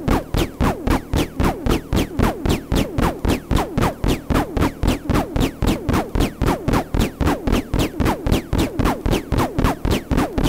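Electronic music played on an MFOS Noise Toaster analog synthesizer through a spring reverb: a fast, even pulse of about four to five notes a second, each a zap falling quickly in pitch, over a low bass beat.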